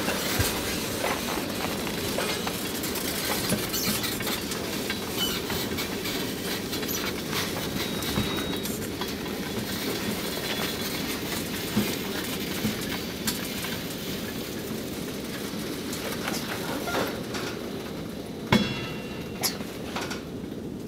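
A freight train of tank cars rolling past: a steady rumble and rattle of steel wheels on rail, with irregular clicks and clanks as wheels cross the rail joints. The sharpest clank comes near the end.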